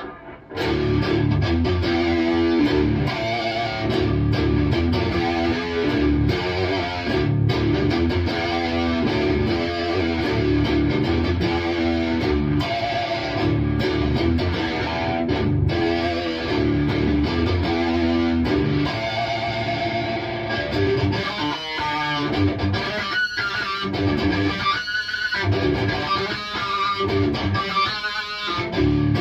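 Electric guitar played through a Bogner Uberschall high-gain preamp with the EQ and compressor effects bypassed, giving a heavily distorted rhythmic riff. From about two-thirds of the way in, the riff breaks into separate chord hits with short gaps between them.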